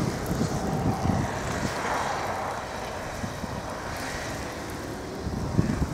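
Blizzard wind buffeting the microphone, with an engine running steadily underneath.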